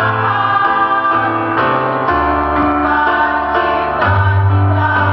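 Women's choir singing sustained notes in harmony over an instrumental accompaniment with low held bass notes.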